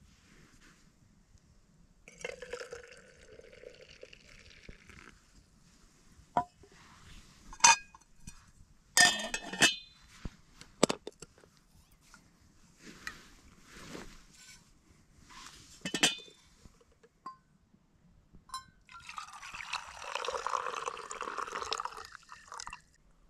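Steel camp cookware and a glass teapot clinking as they are handled, several sharp knocks in the middle. Near the end, milky tea is poured from the glass teapot into a steel mug for a few seconds.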